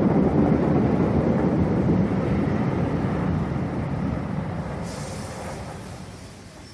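Electric multiple-unit train running along the track, a steady rumble that fades away over the last few seconds, with a brief hiss about five seconds in.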